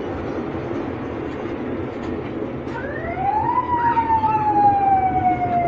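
Steady rumble of a moving amusement-park train ride. About three seconds in, a siren-like tone rises quickly, then falls slowly and keeps sounding.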